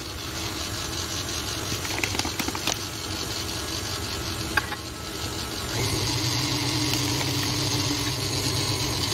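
KitchenAid stand mixer running steadily, its flat beater working flour into a thick green peanut-butter cookie dough in a stainless steel bowl. There are a few light knocks about two seconds in and again about halfway, and the motor gets louder from about six seconds in.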